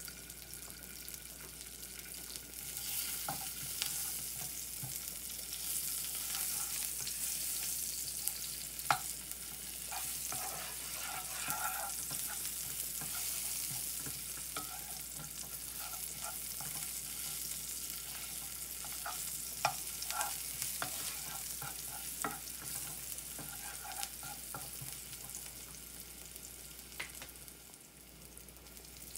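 Crushed garlic cloves sizzling in oil in a frying pan, a steady hiss, with scattered clicks and light knocks of a wooden spatula stirring them around the pan.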